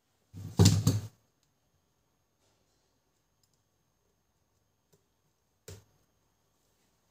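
Plastic printer parts being handled during the gear repair: a short clatter of knocks and clicks about half a second in, then one sharp click near six seconds.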